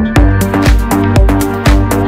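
Background music with a steady beat of about two drum hits a second under a bass line and held synthesizer-like notes.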